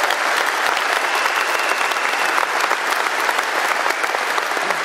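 A large crowd applauding, a dense, steady clatter of many hands clapping.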